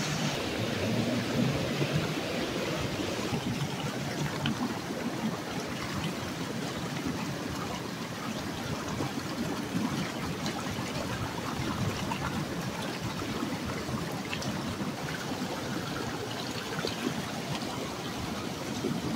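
Steady rush of a mountain stream flowing.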